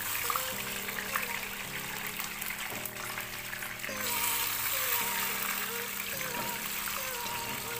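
Tempeh slices sizzling in hot oil in a frying pan, under background music of steady, changing notes. The sizzle grows louder about four seconds in as more slices are dropped into the oil.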